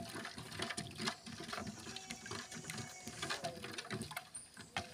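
Wooden spoon stirring a thin milk batter in a stainless steel bowl, a rapid, irregular run of knocks and scrapes against the metal as baking powder is worked into milk that has curdled.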